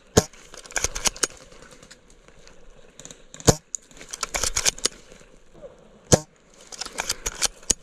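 Snow Wolf KAR98K spring-powered bolt-action airsoft rifle fired three times, about three seconds apart, each shot a sharp crack. Between shots come clusters of smaller clicks and dry-grass crackling.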